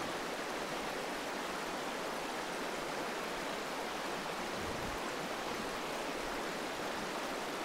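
Shallow, rocky mountain headwater stream flowing over stones: a steady, even rush of water.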